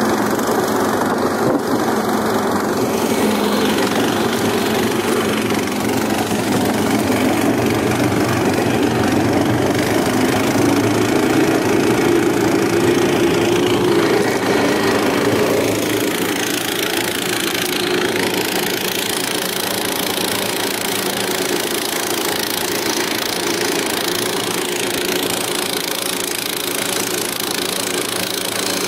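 Engine of a tracked all-season floating motorized tow running steadily as it drives across a bog. Its pitch climbs slowly and then drops about halfway through.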